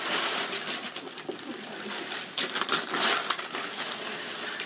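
Wrapping paper rustling and crinkling as a boxed present is unwrapped, with a burst of sharper tearing and crackling about two and a half to three seconds in.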